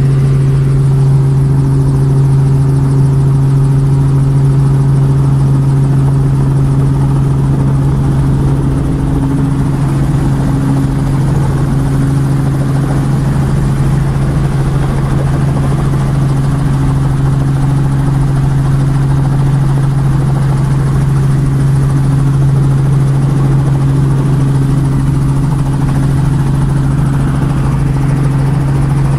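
Helicopter engine and rotor running steadily, heard from inside the cabin: a loud, constant drone with a strong low hum that holds one pitch throughout.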